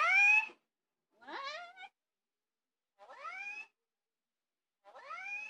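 A cat-meow ringtone playing on a phone: four rising meows, spaced one to two seconds apart.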